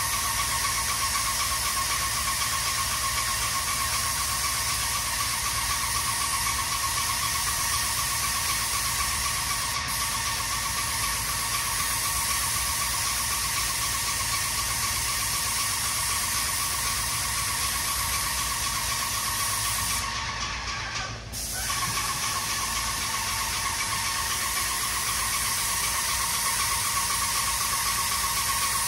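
Paint spray gun spraying roof topcoat: a steady hiss with a high whine, cutting out for about a second some twenty seconds in, then resuming.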